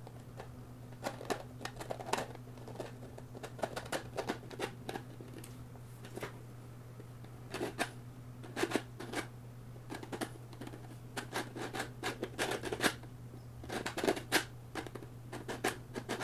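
3D-printed plastic maze puzzle box being worked open: the lid's pegs scrape and click along the maze grooves as the lid is twisted and pulled, giving many short, irregular plastic clicks and scrapes. A steady low hum runs underneath.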